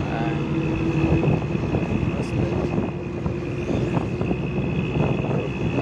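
Steady engine and road noise heard from inside a moving bus on a highway, with a thin high tone running over it.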